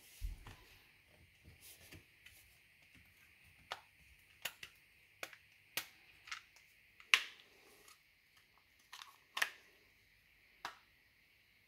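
Sharp plastic clicks and knocks as the housing of a Bosch PSR Select cordless screwdriver is handled and fitted back together. The clicks come irregularly, about ten of them, the loudest about seven seconds in.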